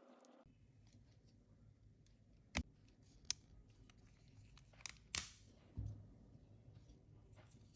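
A handful of sharp, separate clicks and taps from small parts and tools being handled while a mobile phone is taken apart, over a low steady hum.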